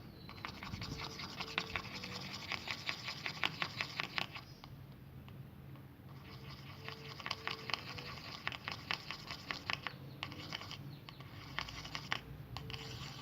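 A soap-based slime mixture being stirred in a container, the utensil scraping and clicking against the sides in quick strokes. The stirring comes in three runs with short pauses between them.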